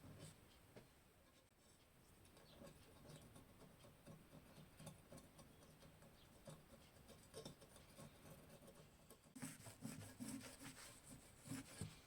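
Quiet, faint small scratching and tapping from hand work at a table, with a denser run of louder scratchy clicks in the last few seconds.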